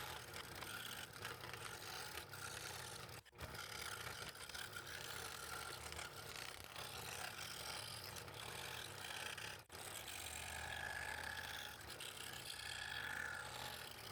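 Scroll saw running, its reciprocating blade cutting thin wood with a steady mechanical chatter. The sound breaks off sharply for an instant twice, about three seconds in and again near ten seconds.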